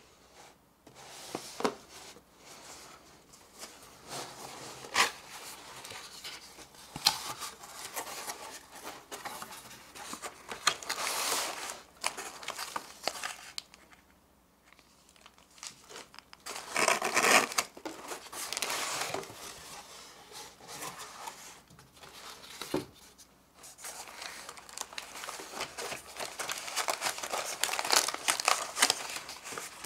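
Plastic wrapping and cardboard packaging crinkling and rustling as the toy's parts are unpacked by hand, with irregular crackles and small knocks. There is a short pause about halfway through, and the loudest crinkling follows soon after.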